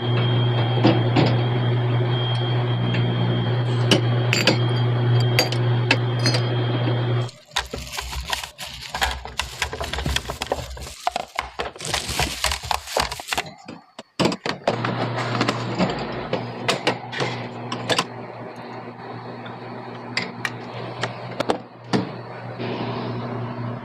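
Drink bottles and cans clinking and knocking as they are stacked into a glass-door showcase drinks fridge, over a steady low hum. The hum drops out for several seconds in the middle, where the handling noise is rougher and more irregular.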